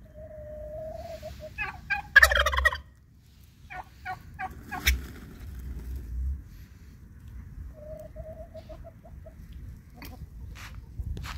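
Chickens calling: a held note at the start, a loud squawk about two seconds in, then a run of short clucks, and a quick string of repeated notes later on.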